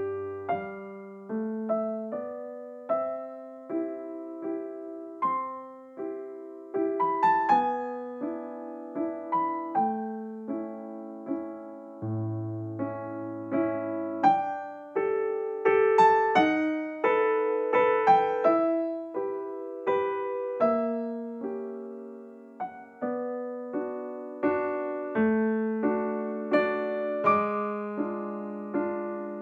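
Background piano music: a gentle melody of struck notes that ring and fade.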